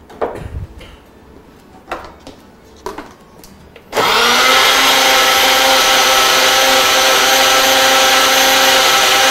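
Countertop blender blending dragon fruit and fresh milk into juice: a few knocks as the jug is handled, then about four seconds in the motor starts and runs steadily and loudly.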